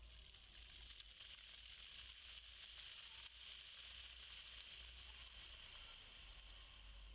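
Water jets of a ground-level plaza fountain spraying up from the paving and splashing down, a faint steady hiss of falling water.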